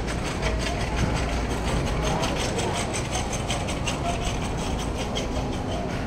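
Shopping cart rolling across a store floor, its wheels rattling in a quick, even clatter over a steady low rumble.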